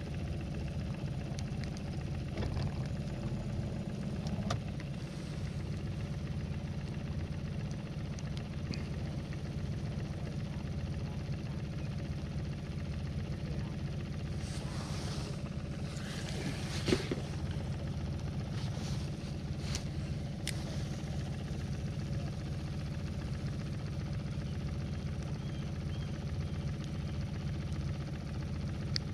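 Boat motor idling steadily with a low, even hum. About halfway through comes a few seconds of rustling noise, ending in a single sharp knock.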